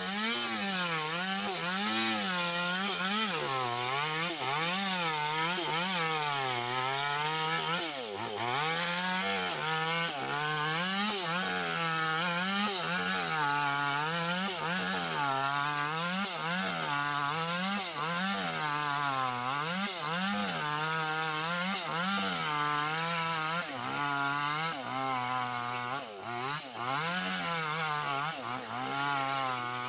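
Chainsaw ripping lengthwise through a log of pink bayur wood. The engine runs loud and steady under load, its pitch rising and falling about once a second as the bar is worked along the cut, with a brief dip around eight seconds in.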